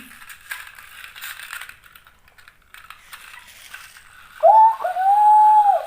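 Small plastic toy cars rattling and clicking as they are pushed and rolled. About four seconds in comes a loud, high held tone: a short one, then a longer one lasting about a second.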